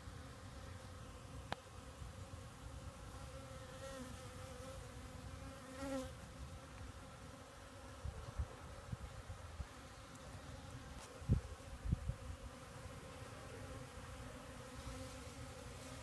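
Honeybees buzzing as they forage, a steady hum with overtones that swells as bees fly close, about four and six seconds in. A few low thumps come about two-thirds of the way through.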